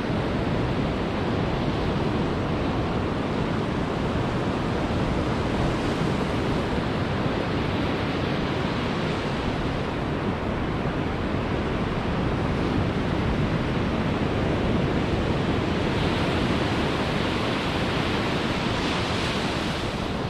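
Ocean surf breaking on a sandy beach: a steady rush of waves, with some wind on the microphone, growing a little brighter near the end.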